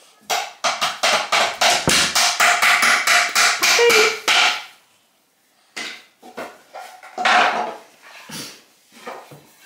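Rapid hammer blows in flat-pack furniture assembly, about five a second for some four seconds, then a few scattered knocks.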